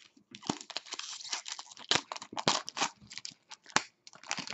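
Foil trading-card pack being torn open and crinkled by hand: a dense run of sharp crackling and rustling, with a short lull near the end.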